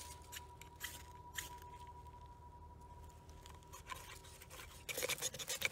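A ferro rod scraped with a striker into a tinder bundle to throw sparks: a few short, scratchy strikes spaced apart. About a second before the end the sound turns louder and denser.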